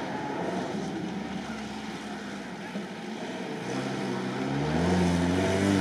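Off-road 4x4's engine running, then revving up about four seconds in, its pitch climbing and getting louder.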